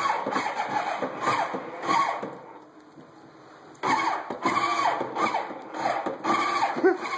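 Ride-on toy quad's electronic engine sound effects, revving in short bursts with a pause of about a second and a half midway.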